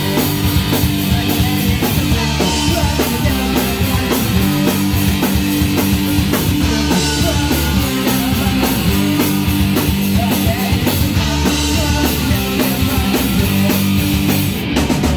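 Punk rock band playing an instrumental passage: drum kit and guitars with dense, steady drumming and no singing.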